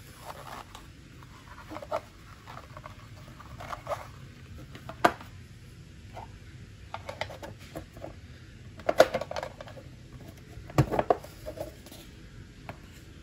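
Hands handling a Casio G-Shock watch: scattered light clicks, taps and short rustles, with sharper knocks about five, nine and eleven seconds in.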